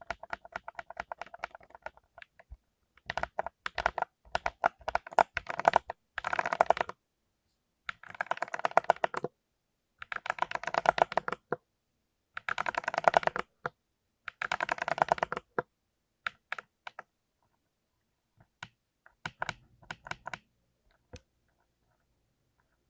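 Typing on a full-size mechanical keyboard with clicky blue switches: fast runs of keystrokes in bursts of a second or two with short silent pauses between, thinning to scattered single key presses near the end.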